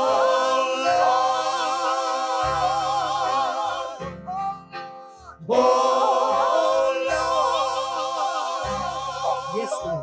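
Gospel praise team singing in harmony into microphones: two long held phrases with the voices wavering, and a short break about four seconds in.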